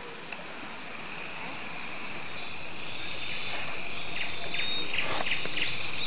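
Steady high chirring of insects that slowly grows louder, with a few short chirps. Two brief scrapes of a knife cutting green bamboo come in the middle.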